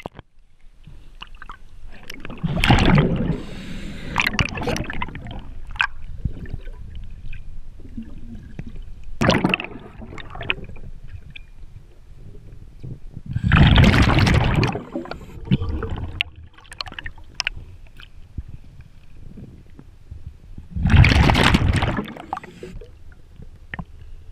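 Diver's exhaled air bubbling out underwater in loud bursts every several seconds, with small clicks and knocks between them.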